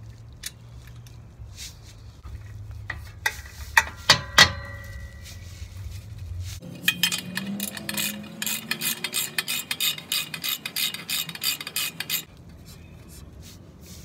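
Metal tools clinking against the exhaust flange, one ringing clink about four seconds in, then a ratchet wrench clicking rapidly for about five seconds as the bolts joining the header to the exhaust pipe are tightened.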